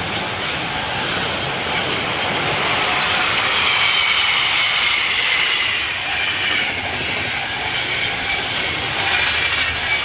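Trains passing at speed on an electrified line, an empty car-carrier freight and a passenger train of coaches, with a steady rush and rattle of wheels on rail. A high whine over the wheel noise falls slightly in pitch from about three seconds in.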